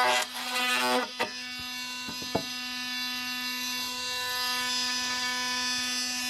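Milwaukee M18 Fuel oscillating multi-tool with a wood blade cutting into a 2x4 for about the first second, then running free with a steady high-pitched buzz, with a few light clicks soon after.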